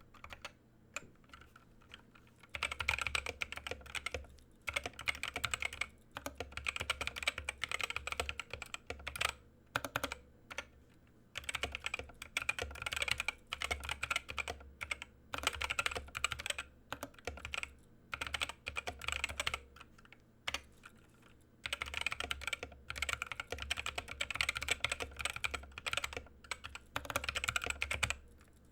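Typing on a mechanical keyboard with unlubed Gateron optical Yellow linear switches: rapid keystroke clicks in long runs. It starts a couple of seconds in and pauses briefly about ten and twenty seconds in.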